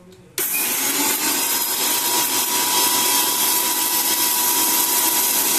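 Prestige Iris 750 W mixer grinder switching on suddenly about half a second in and running steadily at full speed with a whine, its small steel jar grinding dry-roasted whole spices (cumin, coriander, fennel, red chillies) into a coarse powder.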